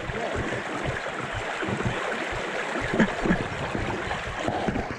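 Fast spring-fed river water rushing and gurgling over a shallow bed close to the microphone, with a slightly louder surge about three seconds in.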